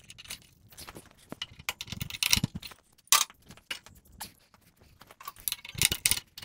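An adjustable wrench clinking and scraping on the ram-adjustment nut of a power hammer as the nut is tightened: irregular metal clicks, knocks and short scrapes, the loudest knocks about two to three seconds in and near the end.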